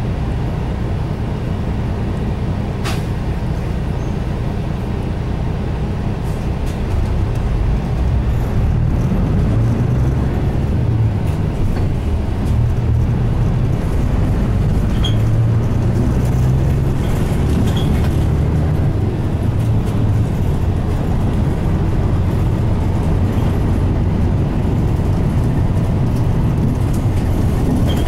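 Mitsubishi Fuso Aero Star city bus's 6M70 turbocharged diesel, heard from inside the cabin. It runs quietly at a standstill, then gets louder about seven seconds in as the bus pulls away and keeps running under load.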